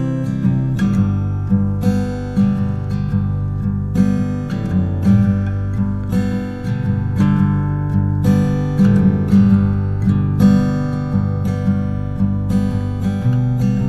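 Background music of a strummed acoustic guitar playing sustained chords in a steady rhythm.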